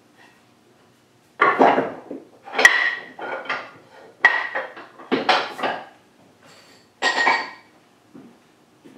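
Metal vise hardware (steel screw and lock parts) clanking and knocking against the workbench while the vise is being assembled, in about six separate bursts with a short metallic ring.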